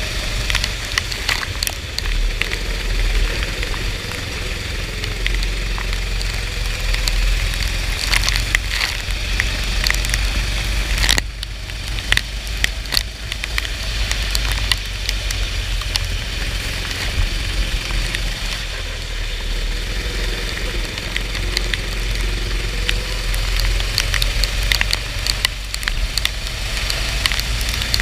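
Kart engine running through a race on a soaked track, its pitch rising and falling, under heavy wind rumble on the microphone and a dense crackle of rain and spray hitting it.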